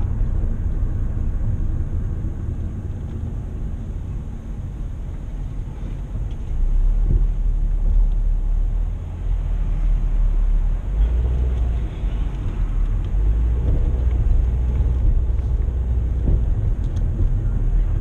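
Car driving slowly, heard from inside the cabin: a steady low rumble of road and engine noise that grows louder about six seconds in.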